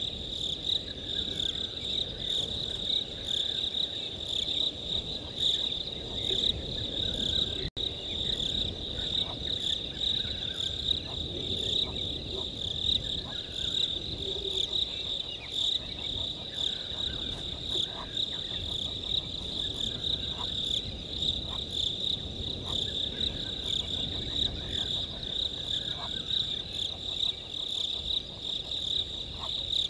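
Night insect chorus of crickets chirring steadily at one high pitch, with scattered short chirps from other animals mixed in. The sound cuts out for an instant a little before eight seconds in.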